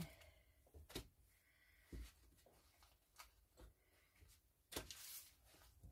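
Near silence with a few faint, scattered clicks and knocks of a kitchen knife cutting a stick of soft butter on its paper wrapper, and a slightly louder brief rustle near the end.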